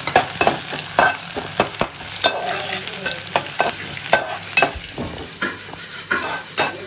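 Ground masala paste sizzling in hot oil in a pan while it is stirred with a spoon. The spoon scrapes and knocks against the pan about twice a second.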